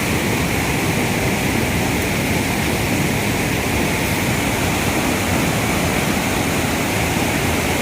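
Waterfall water rushing in a steady, unbroken wash of noise.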